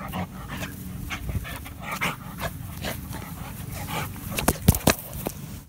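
Bull terrier breathing and snuffling right up against the phone, in short irregular puffs. A few sharp knocks come in quick succession about four and a half to five seconds in, the loudest sounds.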